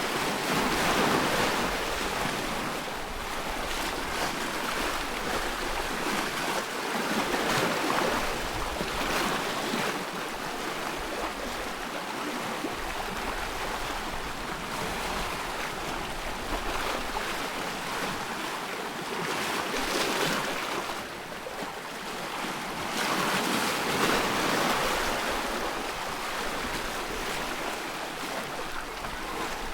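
Waves on a loch lapping and splashing, with wind, the wash swelling and easing in uneven surges every few seconds.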